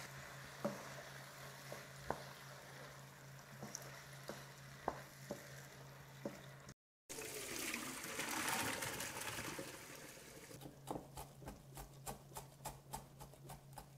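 Wooden spoon stirring a thick barbecue-sauce mixture of meat and vegetables in a wok, with a faint sizzle and scattered scrapes and taps against the pan. After a short break comes a few seconds of louder hiss, then a broad cleaver-style knife chopping parsley on a plastic cutting board, about four quick chops a second.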